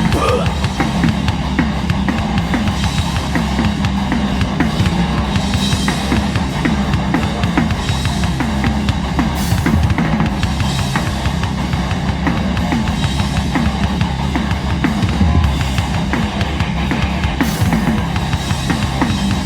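Live hardcore band playing an instrumental passage with no vocals, loud and steady, the drum kit driving it with bass drum, snare and cymbals.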